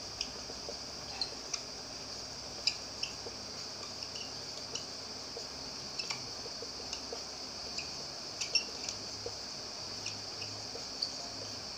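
Marker pen squeaking and ticking in short strokes on a whiteboard while writing, over a steady hiss.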